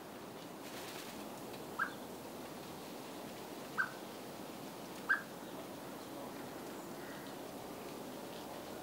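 A bird giving short, single call notes, three in all, a second or two apart, over a steady background hiss.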